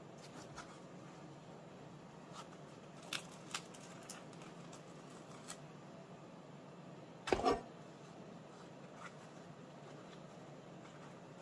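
Quiet handling of halved bread rolls over a wooden cutting board: scattered small clicks and rustles, and one louder knock a little past halfway, over a faint steady room hum.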